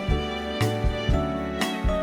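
Background music: sustained instrumental notes over a steady beat of low drum hits, with a sharp percussive hit about every half second.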